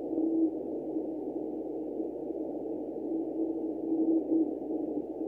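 Morse code from the HiFer beacon PCO, a 3.6-milliwatt CW beacon on the 22-metre band, received on a Ten-Tec RX-340 shortwave receiver. A low keyed beep tone sits in static hiss narrowed by a 500 Hz filter. The tone fades in and out: it is heard briefly at the start, sinks into the noise, and comes back about three seconds in with several dots and dashes.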